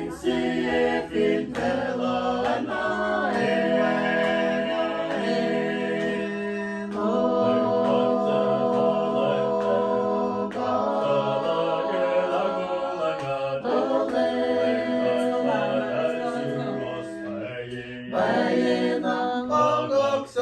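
Several voices singing together a cappella in harmony, in long phrases of held chords.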